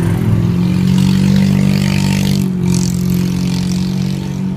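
Motorcycle engine running with a steady low note, loudest about a second in and easing off near the end.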